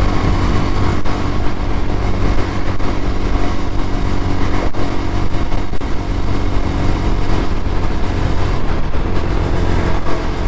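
A 125cc motorcycle engine running at a steady cruise, heard from the rider's seat, with no change in revs.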